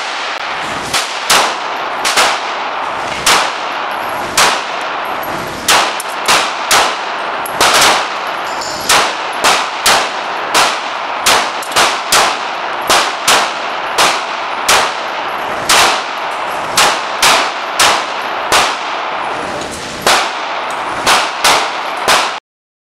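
9mm handgun firing shot after shot indoors, about 35 sharp reports at an irregular one to two a second, each ringing briefly off the range walls, over a steady hiss; the sound cuts off suddenly near the end.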